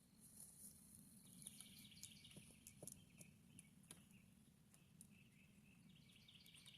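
Near silence: faint outdoor ambience with scattered small bird chirps and light ticks.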